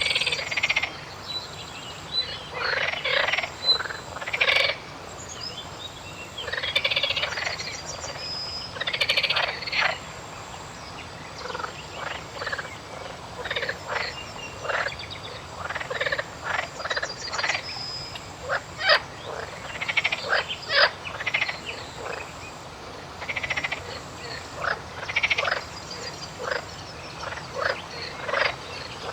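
A chorus of frogs calling: bouts of rapid rattling croaks and single croaks overlapping, with a few faint bird chirps in the background.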